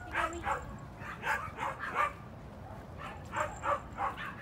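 Miniature schnauzer barking in short, high-pitched barks: a quick run of several barks, a pause of about a second, then another run of barks.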